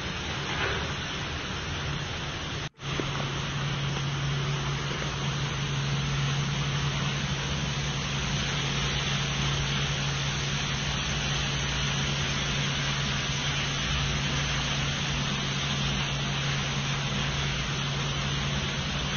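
Meiko rack-type dishwashing machine running, its wash and rinse water spraying with a steady hiss. The sound drops out for an instant about three seconds in, and after that a steady low hum of the pump motors runs under the spray.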